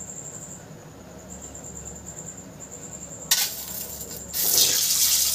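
A peeled boiled egg set into hot mustard oil in a kadai: a sharp click a little over three seconds in, then from about four seconds in the oil starts sizzling loudly around the egg.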